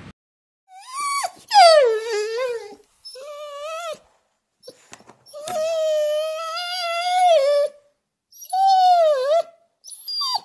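A dog howling and whining: about six drawn-out, pitched calls with gaps of silence between them. Several slide down in pitch, and the longest, in the middle, is held for about two seconds.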